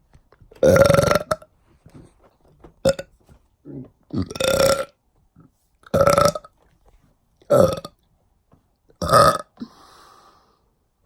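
A woman burping loudly again and again: about six belches roughly a second and a half apart, most of them long and drawn out, one short.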